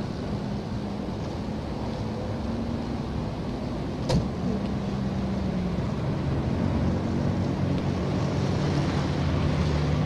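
Street traffic: a motor vehicle engine running steadily, its low note shifting a little in pitch, with one sharp click about four seconds in.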